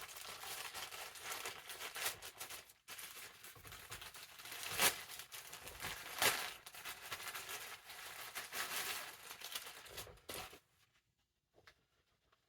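A mailed package being torn open and its packaging handled: continuous crinkling and rustling, with two sharper tearing sounds about five and six seconds in. The handling stops about ten and a half seconds in, leaving only a few faint clicks.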